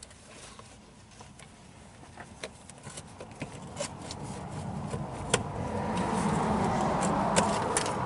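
Plastic interior trim cover being pried and pulled off a car's door pillar: scattered sharp clicks and snaps of plastic. A rushing noise swells over the second half and is the loudest thing near the end.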